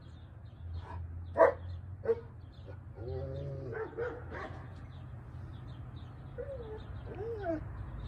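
A dog barking several times in short, sharp barks during the first half, followed by a few softer, pitched calls that rise and fall.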